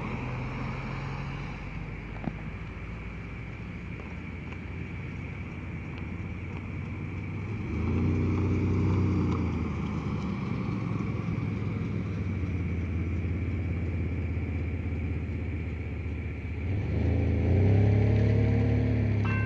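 Road vehicles passing. One vehicle's engine swells and fades about eight seconds in, and another comes up with rising engine pitch near the end, over a steady low hum.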